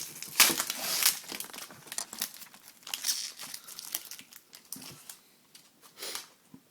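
Plastic wrapper of a trading-card pack crinkling and tearing as it is opened, in a quick irregular crackle that dies down near the end.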